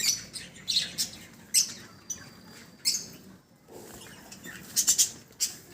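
A flock of budgerigars in a colony aviary chirping: short, high calls scattered about a second apart, with a quick run of several calls near the end.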